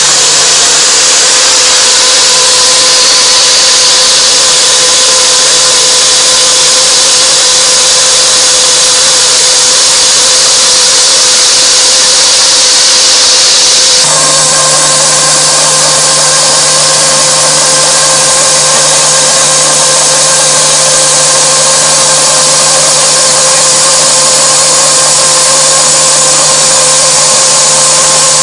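Iscar EFSI-E44 solid-carbide endmill slot milling metal in a CNC machining centre: a loud, steady cutting hiss over a steady multi-pitched machine whine. About halfway through the sound changes abruptly, the high hiss easing and the low hum growing stronger.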